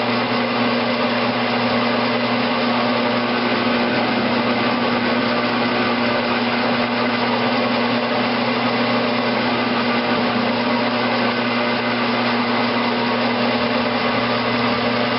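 Grizzly G9972Z 11x26 bench metal lathe running steadily with an even hum, its carbide tool bit turning down a 1018 steel valve stem to size for a press fit.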